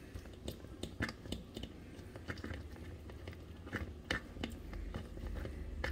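Small spatula scraping and tapping inside a sieve, pressing onion through it: a string of irregular soft clicks and scrapes.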